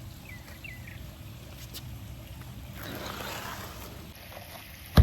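Quiet outdoor backyard ambience with a few faint bird chirps about half a second in, a brief rustle around three seconds in, and one sharp knock just before the end.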